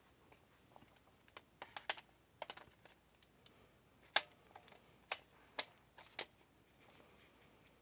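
Faint, irregular light clicks and taps from a pistol-calibre carbine lower and its magazine being handled, as the magazine is worked toward the magwell.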